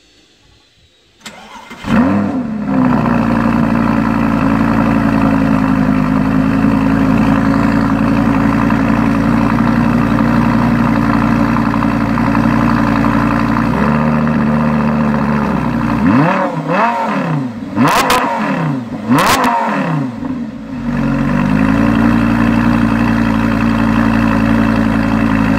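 2009 Lamborghini Gallardo LP560-4's V10 starting a little over a second in, flaring up and settling into a steady high idle, which drops to a lower idle about halfway through. It is then revved in several quick blips, rising and falling, before it settles back to a steady idle.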